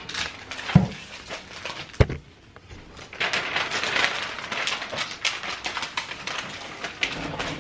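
Two sharp knocks, then a clear plastic window-cling sheet crinkling and crackling as it is handled.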